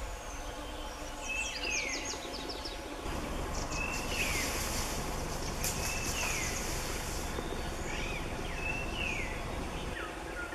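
Forest ambience: a bird repeats a short call, a brief steady whistle followed by a falling note, about every one and a half to two seconds, over a steady insect hiss that grows stronger between about four and seven seconds in.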